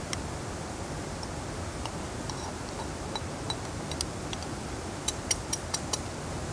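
A dark metal pot scraping and tapping against the rim of a stainless steel camp cup as curry is poured onto rice: scattered light metal ticks, then about five sharp taps in quick succession near the end. A steady hiss runs underneath.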